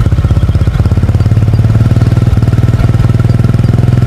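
ATV engine idling with a rapid, even putter, loud and steady.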